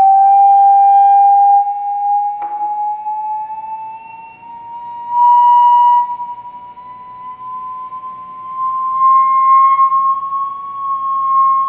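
A single pure tone from a signal generator driving a vibrating Chladni plate, used to make sand form patterns. The tone rises slowly and steadily in pitch and swells and fades in loudness, with a brief click about two and a half seconds in.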